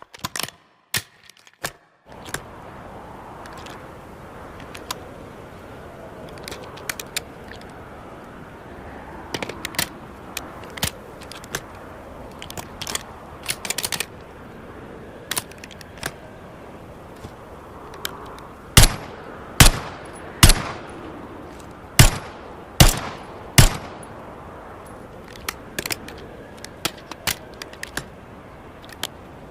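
PP-90M1 submachine gun firing single shots: six loud reports in two quick groups of three, about a second apart, past the middle. Scattered quieter clicks and pops come before them, over a steady low hiss.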